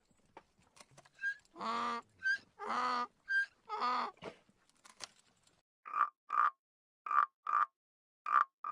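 Animal calls: three longer pitched calls with short high chirps between them, then a series of short calls in quick pairs.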